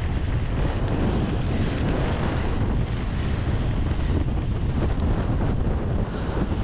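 Wind buffeting the microphone: a steady, loud low rumble with a hiss above it.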